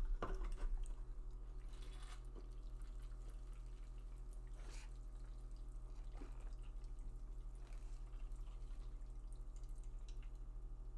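A person drinking sparkling water straight from an aluminium can in one long pull, with a few faint gulps and liquid sounds, over a steady low electrical hum.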